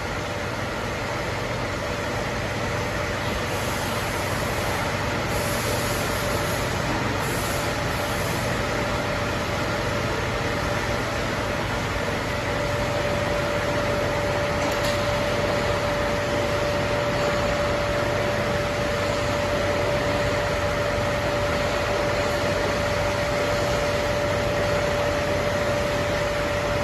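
CNC profile milling and drilling machine running: a steady mechanical hum, joined about halfway through by a constant high whine.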